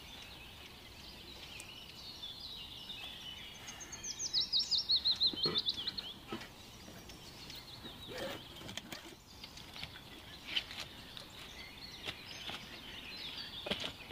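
A songbird sings a fast run of high, clear notes that step down in pitch, lasting about two seconds and starting about four seconds in. Scattered short rustles and clicks from handling a backpack and dry leaves and wood come before and after it.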